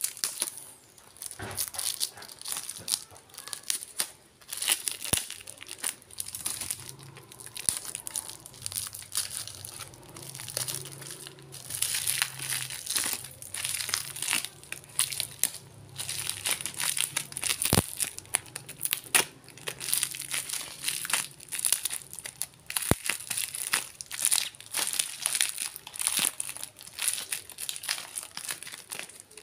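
Brown packing tape and plastic wrap being cut with a utility knife and peeled and torn off a parcel: continuous crinkling and tearing, with a few sharp ticks.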